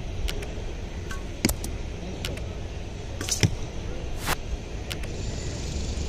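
A recurve bow shot: sharp snaps of the bowstring among several scattered clicks, the loudest about three and a half seconds in, over a steady low rumble.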